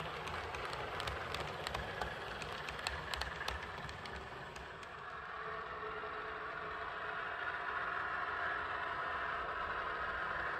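OO gauge model diesel train running on the layout: wheels clicking over the rail joints for the first few seconds, then a steady hum that gets a little louder in the second half.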